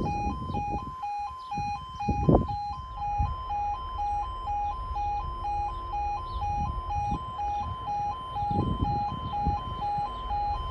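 UK level crossing alarm sounding continuously, an electronic two-tone warning that alternates steadily between a lower and a higher pitch while the crossing is closed for an approaching train.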